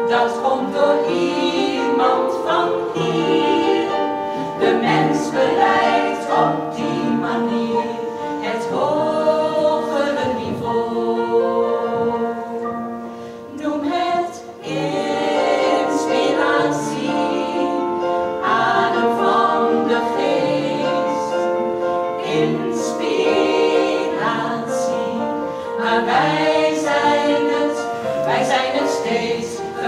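Small women's choir singing in several-part harmony, briefly falling quieter about halfway through.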